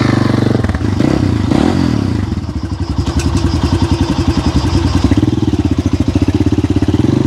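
A 250 cc enduro dirt bike's single-cylinder engine running. It is revved up and down briefly about a second in, then idles with a steady, fast pulse.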